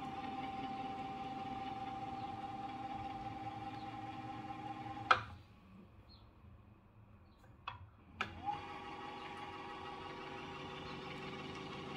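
The upgraded electric motor of a Bonex Discovery RS underwater scooter, with its added cooling fan, runs with a steady whine. About five seconds in it is switched off with a sharp click. After a few quiet seconds and two more trigger clicks, it starts again with a brief rising whine and settles back to a steady run.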